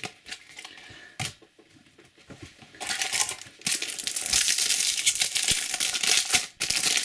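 A Topps Slam Attax booster pack's shiny foil wrapper being torn open and crinkled. The tearing and crinkling start about three seconds in, after a quieter stretch with one light tap.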